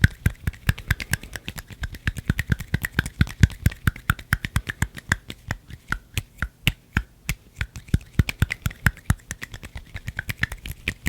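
Close-up ASMR hand sounds: a fast, continuous run of crisp clicks and snaps made with the hands right at the microphone, about eight a second.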